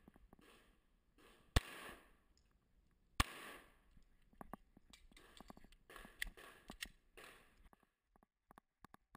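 Two pistol shots about a second and a half apart, each with a short echo, followed by quieter shuffling and movement noise.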